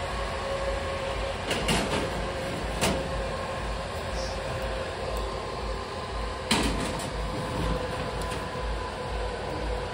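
A kitchen appliance humming steadily with a low pulsing rumble, broken by three sharp knocks, the loudest about two-thirds of the way in.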